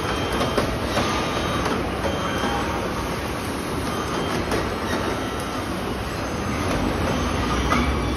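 Steady machinery noise of a robotic car-body assembly line: a continuous mechanical hum and rumble with a few short, sharp knocks.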